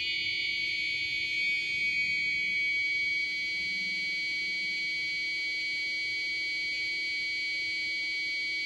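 A 555 timer oscillator sounding through a small speaker: a steady, high-pitched buzzing tone held at one pitch, just after being tuned higher with the potentiometer.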